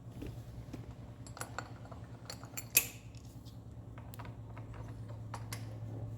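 Small steel parts clinking and tapping as cylinder-head bolts and washers are handled and oiled, with one sharper clink about three seconds in. A steady low hum runs underneath.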